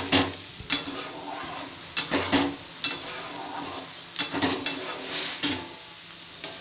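Steel spatula clinking and scraping against a steel cooking pan, about ten sharp, irregular metallic knocks, as when food is being stirred.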